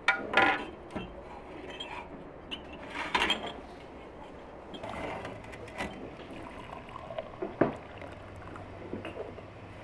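Cut-glass tea glasses clinking as they are set down on a metal tray, several sharp clinks over a few seconds. Near the end, hot water running from a samovar's tap into a glass.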